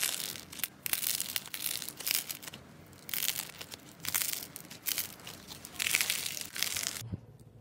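Thick pink slime squeezed and pulled apart by hand, crackling and crinkling in repeated bursts; the sound stops abruptly about seven seconds in.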